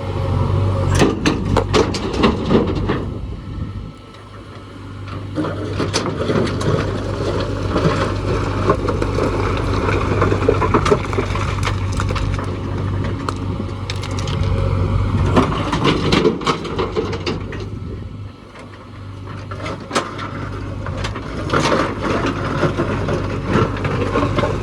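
JCB backhoe loader's diesel engine running steadily, with repeated scraping, cracking and clattering of earth and stones being dug and tipped. The noise drops away briefly twice, about 4 and 18 seconds in.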